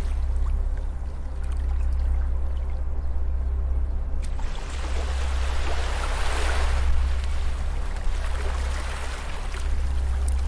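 Gentle beach waves washing onto the shore: one wash swells up about five seconds in and fades, and a smaller one follows a few seconds later, over a steady low rumble.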